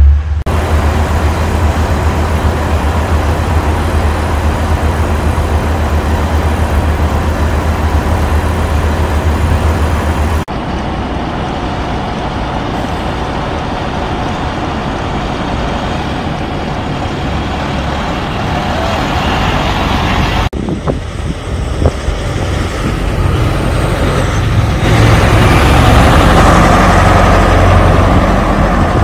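Heavy diesel engines running: excavators, then trucks on a road. The sound changes abruptly twice. Near the end a semi-truck pulling a lowboy trailer loaded with a wheel loader drives by, growing louder, the loudest part.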